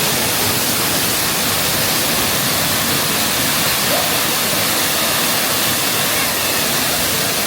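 Waterfall: a loud, steady rush of falling water, an even hiss with no breaks.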